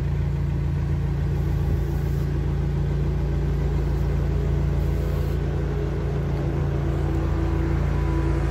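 Narrowboat's diesel engine running steadily at low speed, a continuous low rumble.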